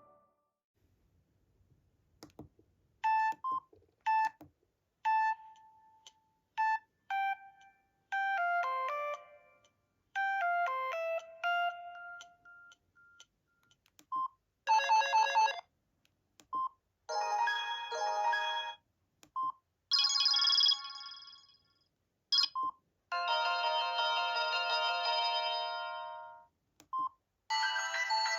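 Samsung SGH-E500 mobile phone playing about half a dozen short ringtone previews one after another, each a few seconds of electronic melody, with brief single beeps in the gaps between them.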